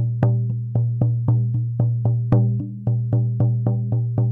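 Buffalo-hide shamanic frame drum with a resonator, beaten in a steady, even pulse of about four strokes a second. Each stroke rings into a deep, sustained hum. The skin is tight, fresh from a centrally heated house.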